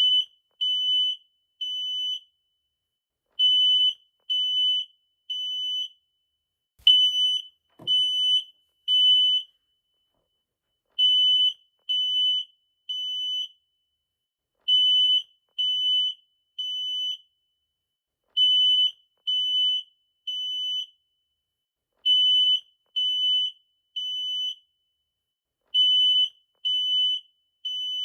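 Smoke detector alarm sounding a piercing high-pitched beep in groups of three, with a short pause after each group, repeating about every three and a half seconds. This is the temporal-three pattern that signals a fire alarm.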